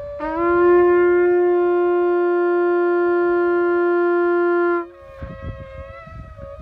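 A ram's-horn shofar blown in one long, steady note that scoops briefly up in pitch at the start, holds for about four and a half seconds and stops suddenly. A second shofar sounds more faintly at a higher pitch underneath and carries on after the loud note ends.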